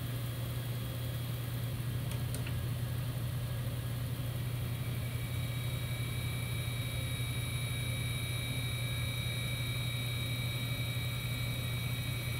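100-year-old Brown & Sharpe No. 1 cylindrical grinder running with a steady low hum, its wheel taking light dry spark-out passes on the workpiece. A thin, higher whine joins about four and a half seconds in.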